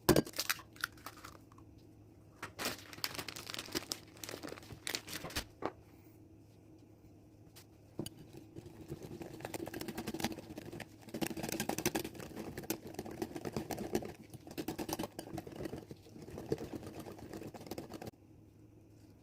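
Kitchen food-preparation sounds: crinkling and crunching with scattered sharp clicks and knocks, growing denser and more continuous partway through, then dropping off shortly before the end.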